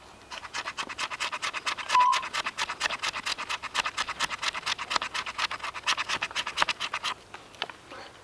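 Rapid rhythmic scraping, about six or seven strokes a second, for roughly seven seconds before it stops: a blade being scraped along a piece of fatwood to raise resinous shavings for tinder.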